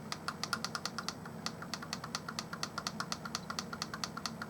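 Small plastic push button clicked rapidly and repeatedly, about seven light clicks a second.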